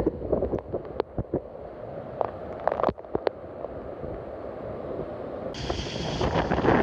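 Typhoon wind buffeting the microphone in uneven gusts, with scattered sharp cracks and rattles. About two-thirds of the way through, a stronger gust sets in with a louder, hissing rush.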